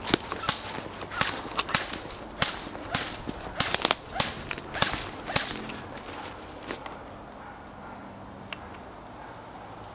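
Footsteps crunching through dry leaf litter and fallen twigs, irregular and uneven for the first six or seven seconds. The steps then stop, leaving only a faint steady outdoor background.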